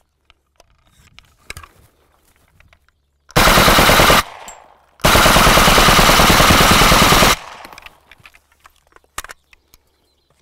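AKM rifle in 7.62×39 with a Venom Tactical Antidote muzzle brake fired on full auto in two bursts: a short one of about a second, then a longer one of about two and a half seconds.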